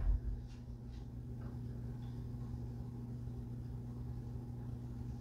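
Steady low electrical hum with a few faint soft clicks and rustles from fingers folding and pressing a narrow cotton fabric strip on a quilted pressing mat early on.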